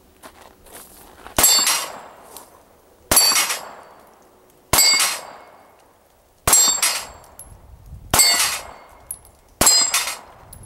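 Six pistol shots from a 9mm Taurus PT709 Slim, each met at once by the clang and ring of an 8-inch steel plate being hit and knocked down. The shots come about one and a half seconds apart.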